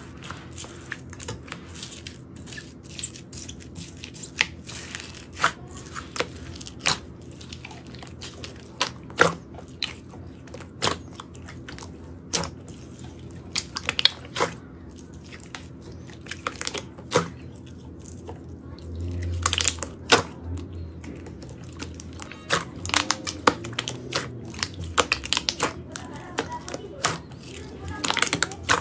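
Slime being squeezed and poked by hand, giving irregular crackling clicks and pops, some much louder than the rest.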